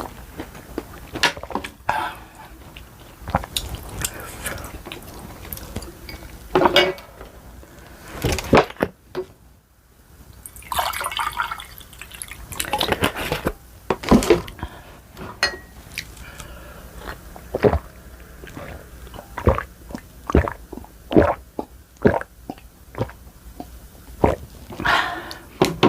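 Close-up eating sounds from a bowl of spicy ramen: wet slurping of noodles and broth, with chewing and short sharp clicks of utensils against the bowl.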